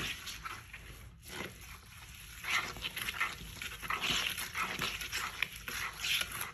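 A plastic spoon stirring wet chopped red onion, cilantro and parsley in lemon juice and olive oil in a large ceramic bowl: uneven scraping and squelching, with a knock about a second in.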